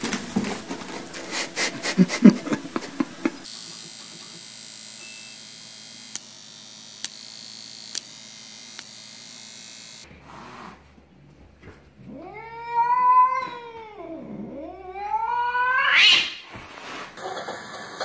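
Domestic cat yowling: two long drawn-out calls, the first rising and falling, the second dipping and then climbing to a high, loud pitch. Earlier there is a quick run of sharp clicks and knocks.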